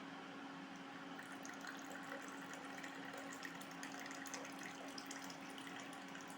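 Liquid pouring, starting about a second in and stopping just before the end, over a steady low hum.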